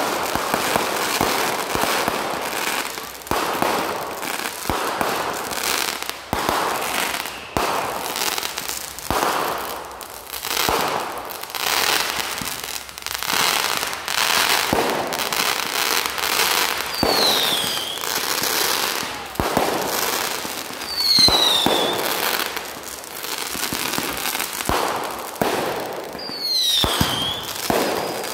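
Consumer fireworks firing in rapid succession: a steady run of launch bangs and aerial bursts with crackle. Three times in the second half, a short whistle falls in pitch.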